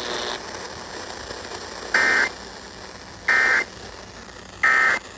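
Emergency Alert System end-of-message code: three short bursts of digital data tones, each about a third of a second long and about a second and a bit apart, signalling that the alert is over.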